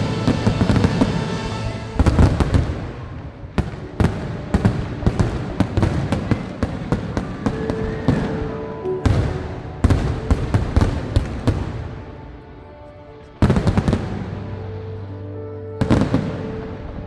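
Fireworks going off in a long run of sharp bangs and crackles, coming in clusters, with a short lull before another loud burst, over background music.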